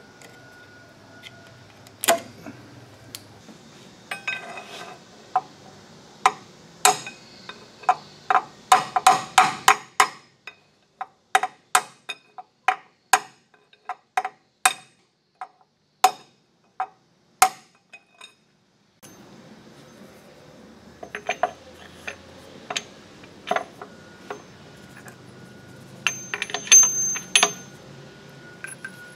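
Repeated sharp metallic taps and clinks, each with a short ring, as a gear shaft and its bearings are tapped into the bores of a lathe headstock casting. The taps come about two a second through the middle, then in a looser cluster near the end.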